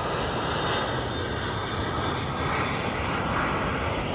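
Propeller airplane's piston engine running steadily, an even drone with no change in level.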